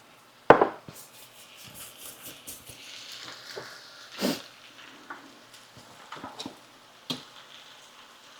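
Kitchen handling sounds: a sharp knock about half a second in and another about four seconds in, with a few lighter clicks over a soft hiss of fries frying in oil.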